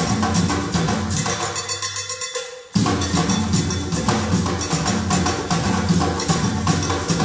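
Percussion-heavy improvised ensemble music with a steady rhythmic beat over a repeating bass line. The music thins out and drops away about two and a half seconds in, then starts again abruptly.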